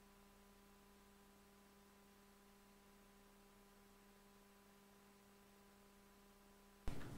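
Near silence with a faint steady electrical hum; just before the end a much louder room sound cuts in suddenly.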